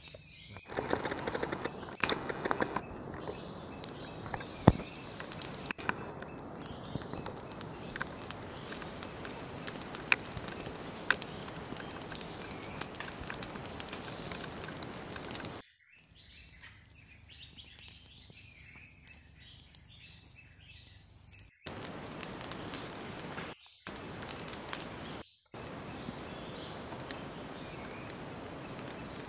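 Outdoor forest ambience. For about the first half there is a steady crackly hiss with many small clicks. After an abrupt cut it turns quieter, with small birds chirping, then the hiss returns in short blocks broken by sudden dropouts.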